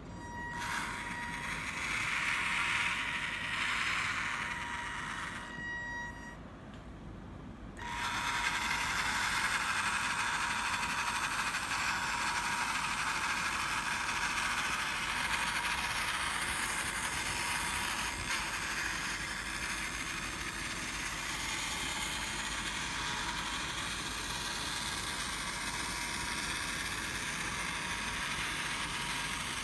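Small electric drive motor and gearbox of a motorized model tank on metal tracks, running with a steady high whine and a hiss. It drops away briefly about six seconds in, then picks up louder from about eight seconds and runs steadily.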